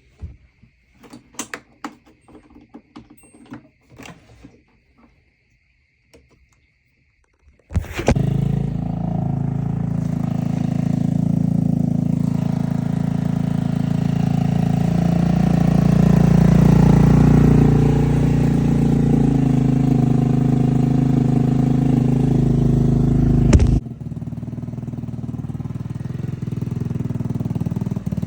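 A few scattered clicks and knocks, then about eight seconds in a GY6 150cc scooter engine fitted with an aftermarket Amazon exhaust starts and runs loudly and steadily. Near the end it drops to a quieter, steadier running sound.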